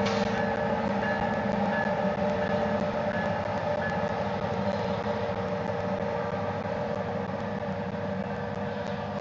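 Double-stack intermodal freight train rolling past: a steady rumble of wheels on rail with a steady diesel drone and faint intermittent high squeals, slowly getting quieter as the locomotives move off.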